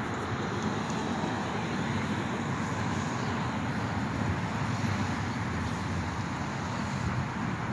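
Steady hum of road traffic on a wide city street, a constant wash of tyre and engine noise with no single vehicle standing out.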